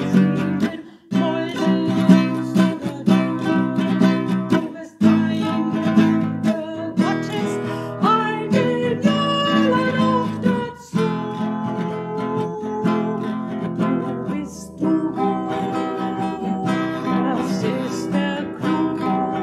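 A woman singing a hymn to her own strummed nylon-string classical guitar, with short breaks between chords about a second in, near five seconds and near eleven seconds.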